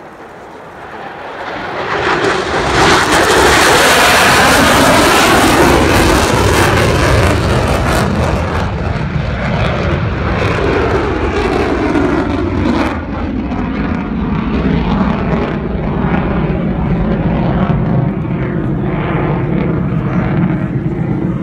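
F-16 fighter jet's engine passing low overhead, a loud roar that swells over the first few seconds. Its pitch falls as the jet goes by, and it stays loud as the jet climbs away.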